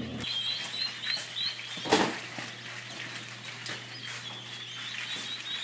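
A hatch of newly hatched bobwhite quail chicks peeping continuously, a dense chorus of short high chirps. A single knock sounds about two seconds in.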